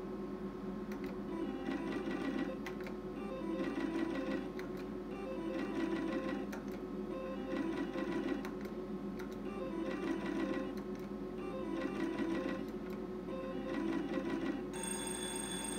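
Novomatic Sizzling Hot slot machine's electronic reel-spin sounds: rapid ticking with short beeping tones, one spin after another about every two seconds. Near the end a steady chiming win tone starts as a line win pays out.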